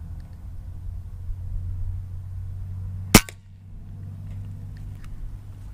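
A single shot from a .22 Air Venturi Avenger PCP air rifle with a shrouded barrel: one sharp crack about three seconds in, over a steady low hum.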